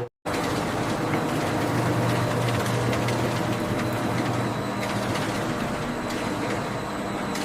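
Factory grinding machinery running steadily: a low hum under a dense mechanical rattle, starting just after a brief break at the very beginning.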